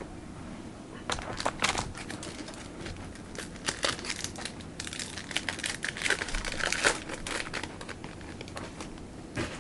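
Crinkling and tearing of a trading-card pack wrapper as it is opened by hand: a dense run of sharp crackles from about a second in until near the end, then one more crackle.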